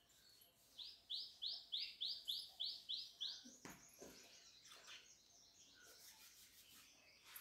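A bird calling: a quick run of about nine identical high chirps, three or four a second, lasting a couple of seconds. Just after it, a couple of soft thumps.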